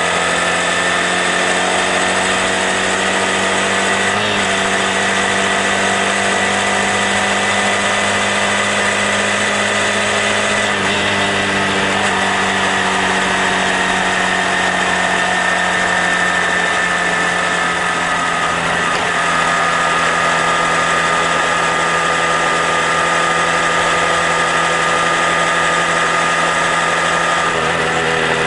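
Honda Grom's single-cylinder engine running steadily under way, its pitch shifting a few times, with wind rushing past.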